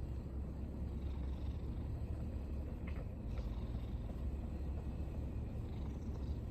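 Ginger tabby cat purring steadily, a low continuous rumble.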